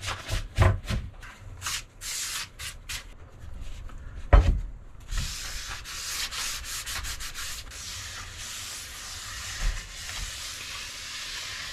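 Cloth rag rubbing tung oil over a wooden panel. Short wiping strokes come first, with a single thump about four seconds in, then steady continuous rubbing.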